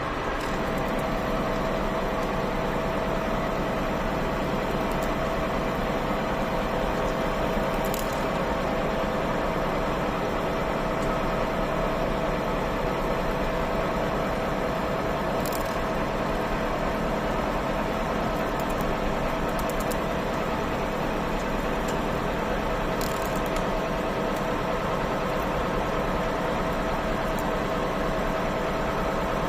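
CNC milling machine cutting metal: a steady whine from the spindle and cutter over constant machining noise, with a few brief ticks as chips fly.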